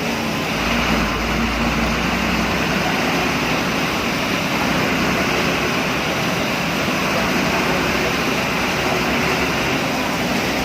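A bus engine running steadily under a continuous wash of road and tyre noise, with a low hum and no sudden changes.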